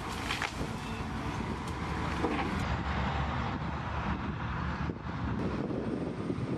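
Heavy wheel loader's engine running outdoors with wind buffeting the microphone, and a couple of sharp cracks at the start. The sound changes abruptly a little under three seconds in.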